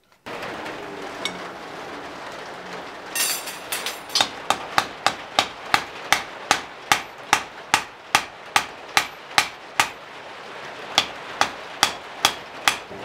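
Hand hammer striking white-hot steel on the anvil to set a forge weld. A steady hiss comes first, then about three seconds in a regular run of blows begins, two to three a second, each ringing off the anvil. A brief pause comes near the end before a few more blows.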